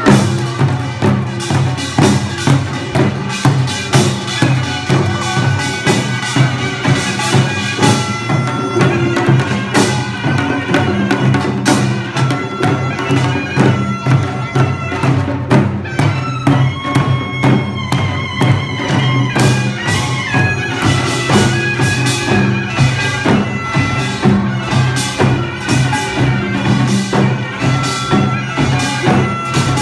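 Korean traditional music: a loud, reedy wind instrument plays a melody over steady low tones and a regular beat of percussion strikes.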